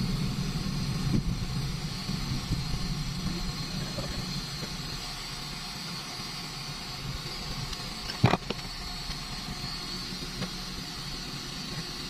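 Car engine and road noise heard from inside the cabin while driving, louder for the first few seconds and then easing off. There is a single sharp click about eight seconds in.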